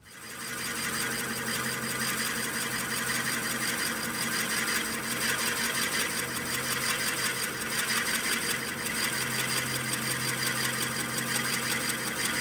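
Oneway wood lathe starting up and turning a blank while a Forstner bit in a tailstock drill chuck bores out its centre: a steady whirring cutting hiss over a low hum, building over the first second and then holding steady.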